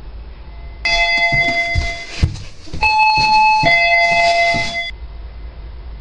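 Electronic doorbell chime ringing its two-note ding-dong twice in quick succession. A few dull thumps and a sharp click fall between the two rings.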